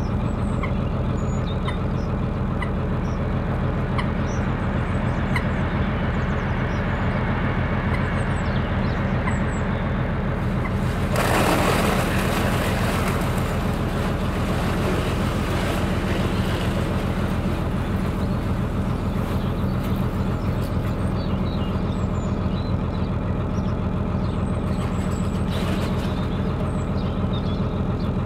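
Narrowboat's diesel engine running steadily under way. About eleven seconds in, a sudden loud rush of noise breaks in and fades over a few seconds, with a shorter, smaller one near the end.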